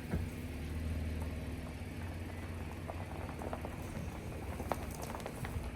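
A motor engine idling steadily, with scattered light clicks and crackles over it.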